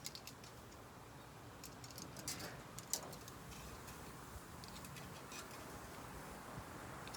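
Food crackling on a grill grate: faint, irregular ticks and pops over a low hiss, with a sharper pop about three seconds in.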